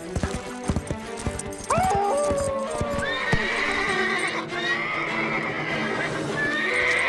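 Hoofbeats, then from about two seconds in a horse whinnying in long, wavering high calls, over background music.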